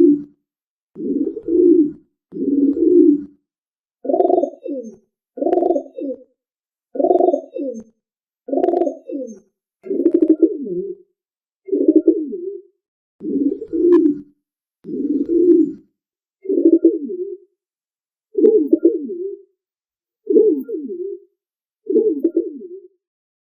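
A pigeon cooing: a series of low coos, about one every second and a half, each phrase warbling and breaking up as it goes.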